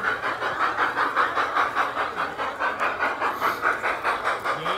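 G-scale model steam locomotive chuffing steadily, about five chuffs a second.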